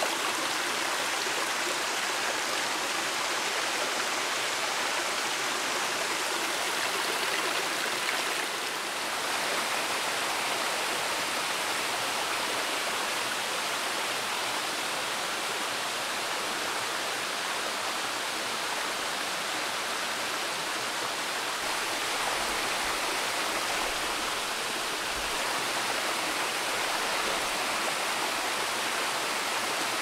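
Steady rush of water from a small waterfall and the stream below it, flowing over rocks. It dips briefly about eight seconds in.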